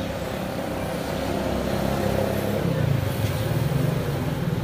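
Street traffic with a small vehicle engine running close by, swelling louder about two and a half seconds in.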